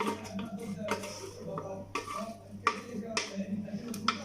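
A spoon clinking and scraping against a container while working a thick paste of ground dried figs and garlic in oil, in irregular knocks and clicks.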